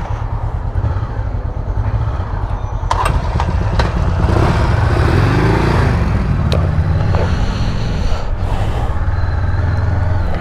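Honda CB500X motorcycle's parallel-twin engine running, with a few sharp clicks along the way.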